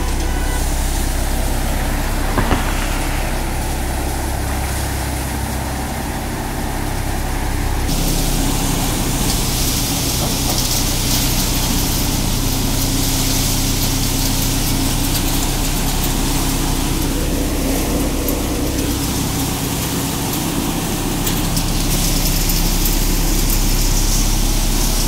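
Sonalika DI-42 RX tractor's diesel engine running steadily under load, powering a threshing machine whose drum and fans whir and hiss as sheaves are fed in. The high hiss of the thresher becomes louder about eight seconds in.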